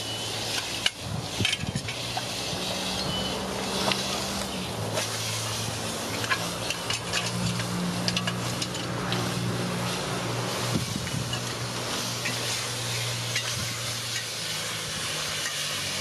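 Crackle and hiss of an open wood cooking fire, with scattered sharp clicks as pots are handled and chicken pieces are mixed by hand in a pot. A low steady hum runs underneath from about two seconds in until near the end.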